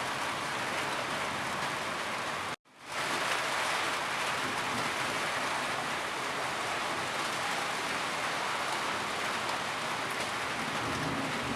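Steady rainfall, an even hiss of many drops. It cuts out abruptly for a split second about two and a half seconds in, then fades quickly back to the same steady level.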